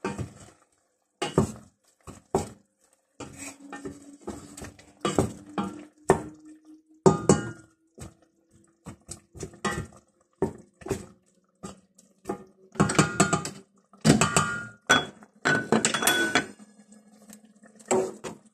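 Wooden spoon stirring chicken pieces in a stainless steel pot, with irregular knocks and scrapes against the pot's sides and bottom.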